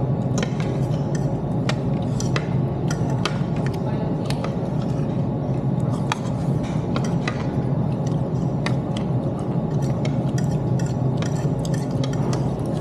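Food court din: a steady low hum with frequent light clinks of cutlery against plates and dishes.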